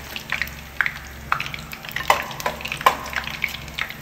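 Hot oil crackling and spitting with many sharp, irregular pops as prawn crackers fry in a frying pan. Water splashed into the frying oil is what makes it spatter.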